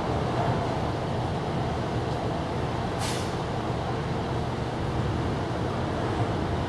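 Steady low background rumble with a short, sharp hiss about three seconds in.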